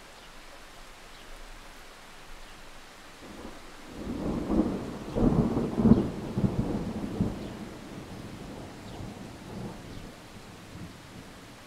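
Thunderstorm: steady rain, with a thunderclap about four seconds in that crackles and rumbles, loudest near the middle, then rolls away over a few seconds.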